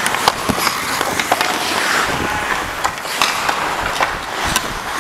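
Ice hockey skate blades carving and scraping on the ice, a steady hiss, with scattered sharp clicks and knocks from sticks and puck and a few low thumps.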